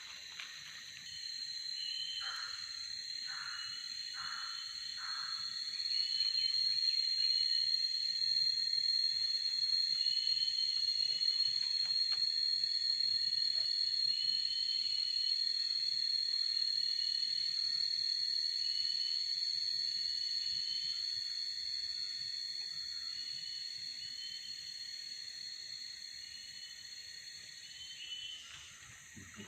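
Forest insect chorus: a steady high-pitched drone starts about a second in, swells, then fades away near the end, over short chirps repeating about once a second. A few seconds in come four short falling calls.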